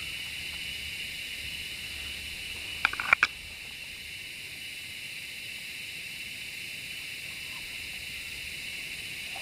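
Steady high-pitched drone of forest insects, with a quick run of three sharp clicks about three seconds in.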